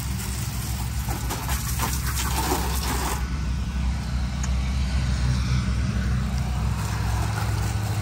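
A pressure-washer engine runs with a steady hum while the wand's water spray hisses. The spray hiss drops away suddenly about three seconds in, and the engine carries on.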